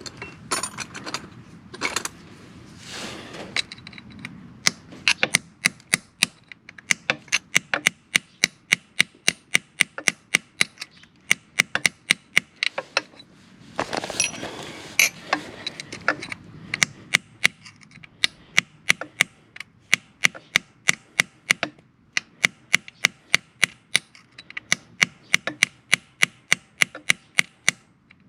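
Hand tools working on a motorcycle's stripped oil drain bolt: a steady run of sharp metallic clicks, about two to three a second, with a couple of brief stretches of scraping.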